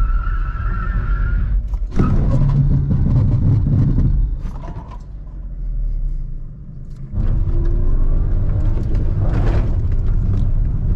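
A car braking hard with its ABS and ESP disabled: locked tyres squeal for about the first two seconds, then a loud low rumble of the car and road. The rumble drops away partway through and comes back abruptly.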